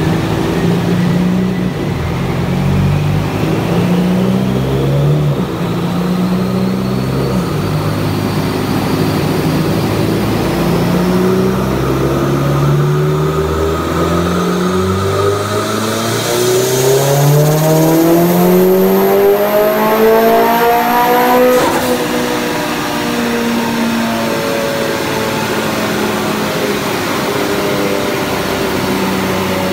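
Mitsubishi Lancer Evolution X's turbocharged 2.0-litre four-cylinder revving on an all-wheel-drive chassis dyno for a tuning pull. The revs climb in a series of short steps and then in one long rise to high revs, which cuts off suddenly about two-thirds of the way through. After that the engine drops back to lower revs.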